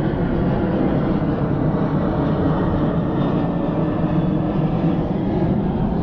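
A steady, loud rumbling noise with no distinct events.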